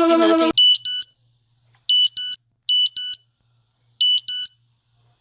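An electronic emergency alert tone cuts off about half a second in. It is followed by an alarm giving four pairs of short, high-pitched electronic beeps, the pairs unevenly spaced and separated by silence.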